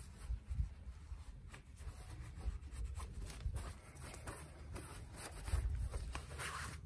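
Faint scattered light knocks and rustles of hands and tools at work, over a low rumble.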